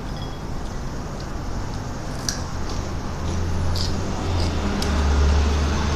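A steady low rumble that swells about three seconds in, with a few faint crisp clicks as the crunchy snacks are picked from the bowl.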